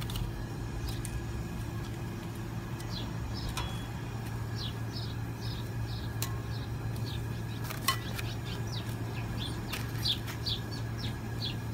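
Small birds chirping in short, falling notes, at times several a second, over a steady low hum. A few sharp clinks come from metal tongs on the grill grate and the glass bowl as grilled tomatillos are picked up.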